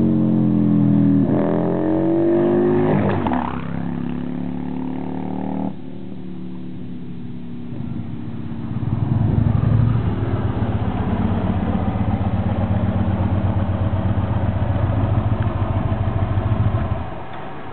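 Motorcycle engines on a road: first one passes with its pitch rising and falling, then, after an abrupt cut, a motorcycle engine runs close by with a steady, fast-pulsing low rumble that stops suddenly near the end.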